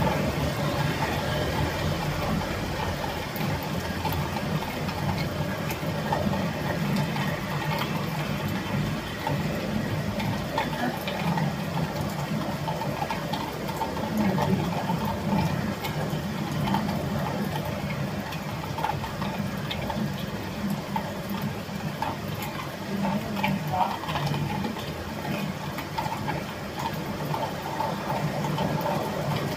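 Steady rain, an even hiss of pattering drops with a low rumble underneath.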